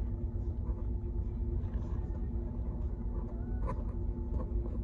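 Steady low rumble with a constant mechanical hum of two steady tones, plus a couple of faint clicks about three and a half seconds in.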